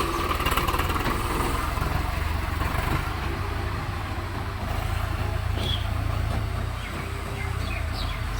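Heavy diesel engine of earth-moving machinery running steadily with a low, even rumble.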